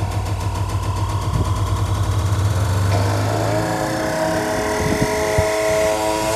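Electronic dance music in a beatless breakdown, played loud through an Electro-Voice ZLX-12P speaker and EKX-18SP subwoofer: a low bass drone gives way about three seconds in to sliding synth tones that settle into a held chord.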